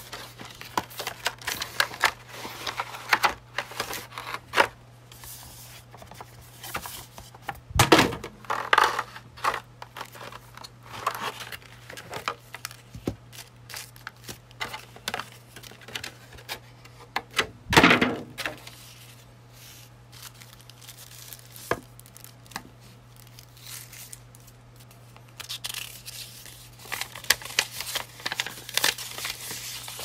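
Unboxing handling noise: a cardboard box and sleeve being slid and handled, clear plastic wrapping crinkling, and a folded paper instruction leaflet rustling open near the end. Two louder knocks come about a quarter and a little over half of the way through, over a faint steady low hum.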